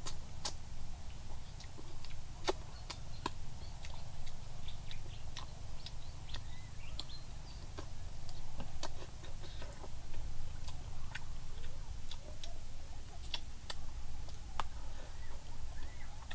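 Close-up eating sounds as fried eel is chewed: scattered sharp clicks and smacks of the mouth and chopsticks, irregular throughout, over a steady low rumble.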